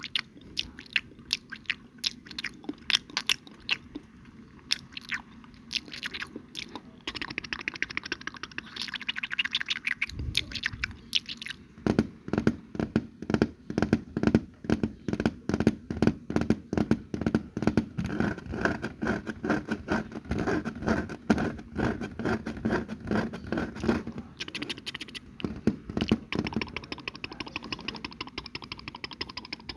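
Close-miked ASMR mouth sounds: crunching and chewing with many sharp clicks. They become faster and fuller about a third of the way in.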